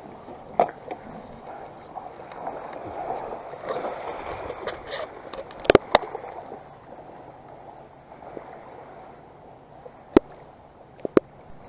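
Small waves washing and lapping on a sandy shore, swelling and easing. A few sharp clicks cut through: one near the start, a pair around the middle and three near the end.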